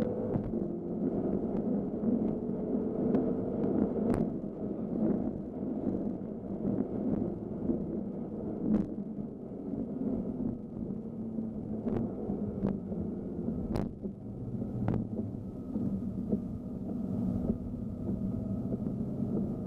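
BMW M5 F10's twin-turbo V8 heard from inside the cabin, driving on a wet track with tyre and spray noise. The engine note rises over the first four seconds, then falls to a lower note, and a handful of sharp clicks cut through.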